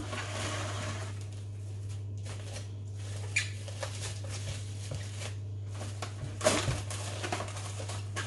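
Plastic cling film being pulled off its roll and stretched over a plastic mixing bowl, crinkling and rustling in irregular bursts, the loudest crackle about six and a half seconds in. A steady low hum sits underneath.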